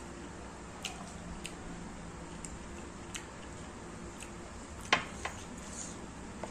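Close-up eating sounds: scattered small clicks and squishes of chewing and of fingers mixing rice and pork curry. About five seconds in, a sharper clink followed quickly by a lighter one as the small glass bowl of dal is set back down.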